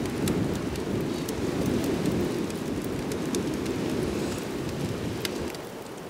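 Wood fire burning under a wire grill: a low, steady rush of flames with sharp crackles and pops. It grows quieter shortly before the end.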